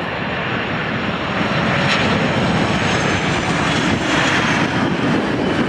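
Jet airliner's engines running as a loud, steady rush, with a faint high whine that falls slightly in pitch from about two seconds in.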